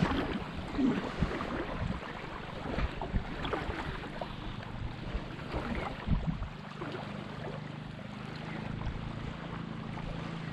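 Shallow lake water sloshing and splashing around a wading angler's legs, with wind on the microphone. About six seconds in, a low steady hum sets in underneath.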